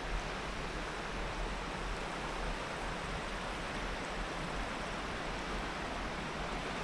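River water flowing steadily over shallow riffles and around boulders, an even rushing hiss with a low rumble underneath.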